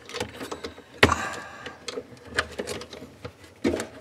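Hands handling wire leads and plastic connectors inside a freezer compartment: scattered clicks and rustling, with a sharp click about a second in and two more a little over a second apart near the end.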